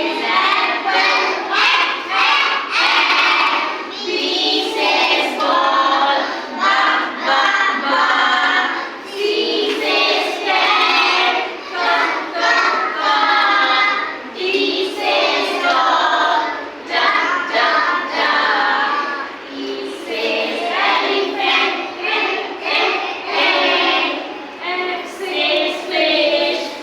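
A group of young children singing together in unison, in short repeated phrases.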